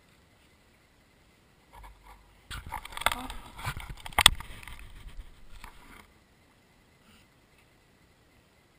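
Landing net with a pike in it being lifted out of the water and laid on the grass: the mesh and its contents rustle and scrape for about four seconds, with several knocks and one sharp, loud knock around the middle.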